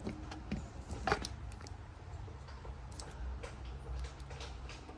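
Light plastic clicks and taps as a small toy blaster is pushed into the holster on a plastic action figure, a handful of separate clicks with the sharpest about a second in.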